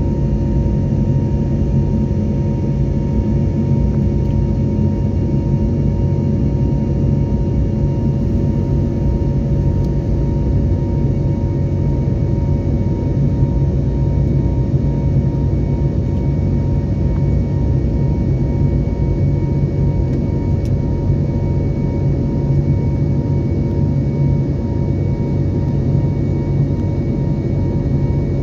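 Steady cabin noise of a passenger jet in flight, heard from inside: an even rumble with a few constant humming tones over it.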